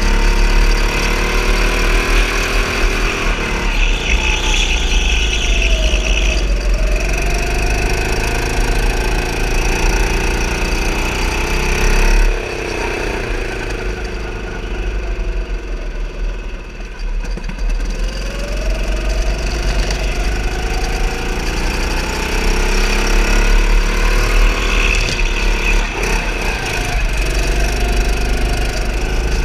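Go-kart engine running under throttle while driving, its pitch rising and falling repeatedly as the kart speeds up and slows for corners. A high squeal comes in for a couple of seconds about four seconds in and again near the end, with tyres sliding.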